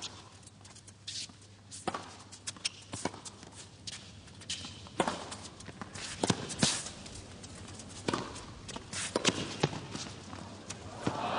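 Tennis rally: sharp pops of the ball off the rackets and its bounces on the hard court, about one a second, with players' footsteps and shoe scuffs between them. Crowd applause breaks out at the very end as the point finishes.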